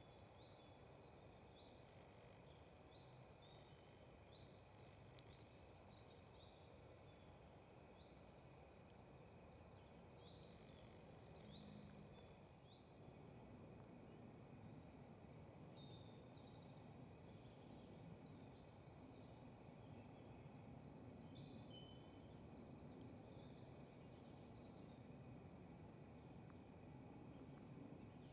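Near-silent woodland ambience: a low, even background hiss with faint small-bird chirps repeating, growing busier and higher-pitched about halfway through.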